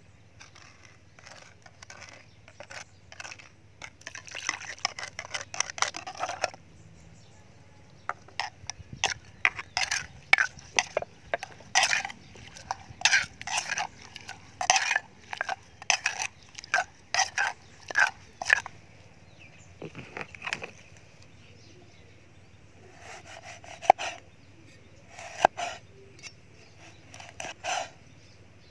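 Wooden pestle pounding chilies and garlic in an earthenware mortar: runs of quick knocks, about two to three a second. After a pause, a few knocks of a cleaver cutting limes on a wooden chopping block near the end.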